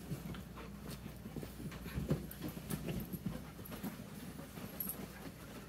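Several dogs and puppies romping on a mattress and dog bed: irregular soft thumps and scuffles of paws and bodies on the bedding.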